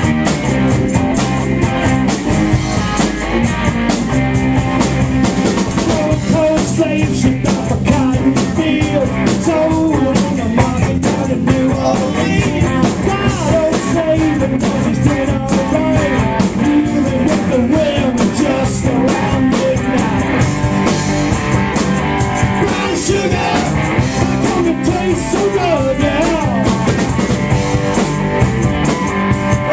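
Live rock band playing loud: electric guitars and bass over a drum kit with busy cymbals, recorded close to the stage.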